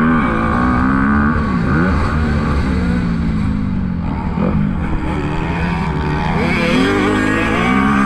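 2021 Honda CRF250R's single-cylinder four-stroke engine revving hard and dropping back again and again as the rider accelerates and shifts on dirt, climbing in pitch once more near the end.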